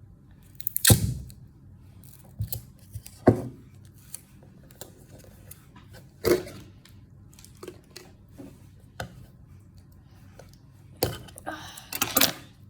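Small plastic toy pieces and their packaging being handled: scattered clicks, taps and light rustles, with sharper knocks about a second in, around three and six seconds, and a cluster near the end.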